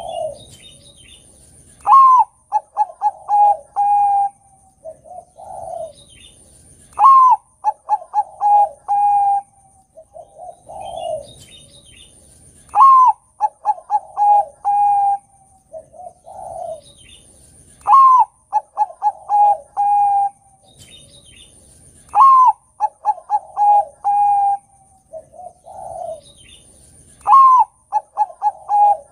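Zebra dove (Bangkok-bred perkutut) singing its cooing song six times, about every five seconds: each phrase opens with a rising note, then runs into a quick string of short coos and ends on a few longer held coos, with softer coos between phrases.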